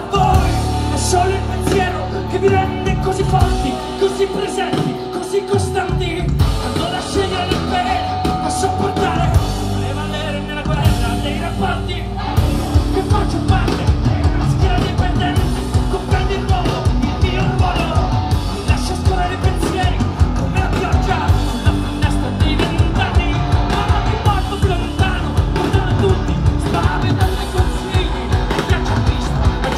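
A rock band playing live: a singer belting over electric guitars, bass and drums. It opens on a heavy hit with a held bass note, and about twelve seconds in the drums come in with a fast, driving beat.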